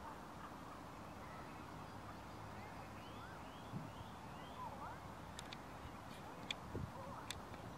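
Birds chirping against a steady low rumble of outdoor background, with a few sharp clicks and a couple of soft low thumps in the second half.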